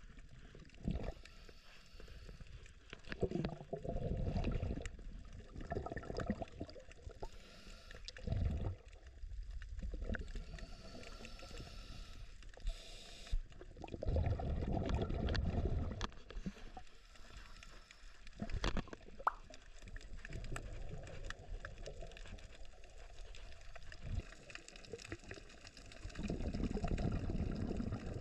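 Scuba diver's exhaled regulator bubbles heard through an underwater camera housing: a muffled, low bubbling that comes in bursts of a second or two every few seconds with the breathing, with quieter water noise between.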